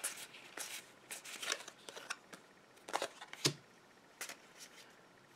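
Pokémon trading cards being flipped through and laid down: a scatter of soft flicks and rustles of card stock.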